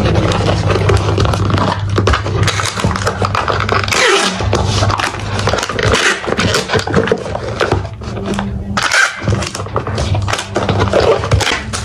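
Packing tape ripping off a handheld tape dispenser as it is run over a cardboard box, with the box scraping and knocking as it is handled.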